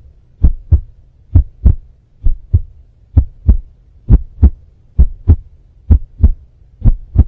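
Heartbeat sound effect: a steady double thump, lub-dub, repeated eight times at a bit more than one beat a second, over a faint low hum.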